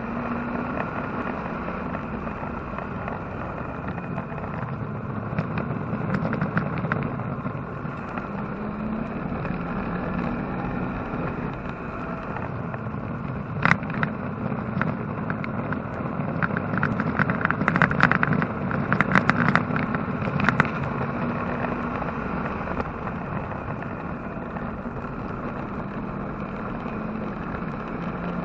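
Chevrolet engine in a Porsche 944 race car running steadily, heard from inside the cabin. A sharp click comes about halfway through, followed by a few seconds of rattling clicks.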